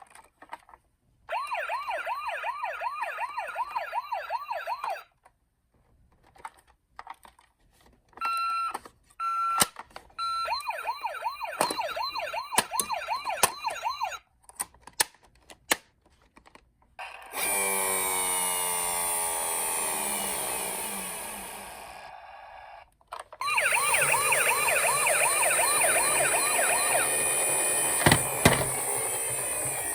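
Toy ambulance minicars' battery-powered electronic sirens, sounded one after another through tiny speakers. Each gives a few seconds of fast, rising-and-falling wailing, with clicks and short pauses between. In the second half come two longer, louder siren passages.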